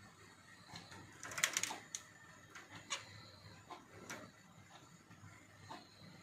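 Scattered light clicks and taps around a finch cage, with a brief flurry of them about a second and a half in.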